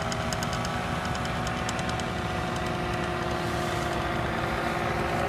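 Paramotor engine idling steadily on the pilot's back, getting a little louder near the end.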